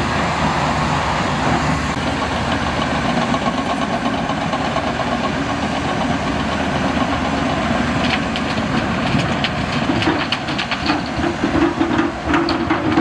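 Diesel engine of heavy earthmoving machinery running steadily, with rattling and clanking knocks starting about eight seconds in and a droning tone coming and going near the end.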